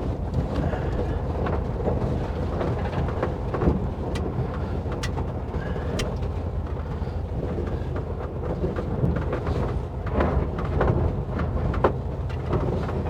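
1958 Volkswagen Bus driving over a rough dirt trail: a steady low engine rumble with scattered knocks and rattles from the body and suspension over the bumps, more of them near the end.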